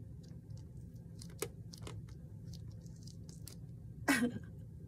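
Faint taps and clicks of a stamp being handled and pressed by hand on an ink pad and paper, over a low steady hum. About four seconds in, a short vocal sound falling in pitch, like a cough or grunt.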